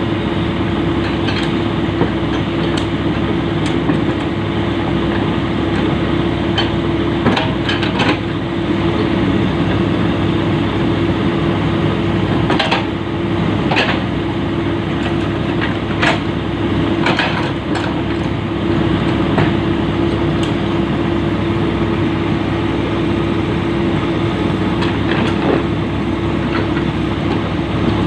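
Komatsu PC-200 excavator's diesel engine running steadily with a constant drone, while a scattering of sharp knocks and clanks sounds from the track work, most of them clustered around the middle.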